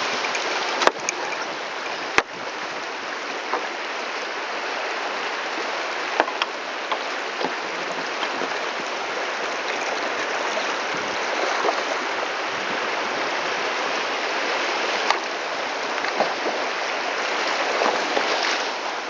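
River rapids rushing steadily around a kayak as it runs through white water. A few sharp knocks break in, the loudest about one and two seconds in.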